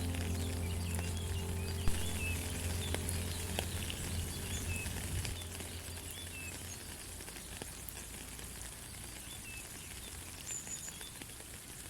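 Light rain pattering with scattered drips, with small birds chirping over it, under a low held music note that fades out about halfway through.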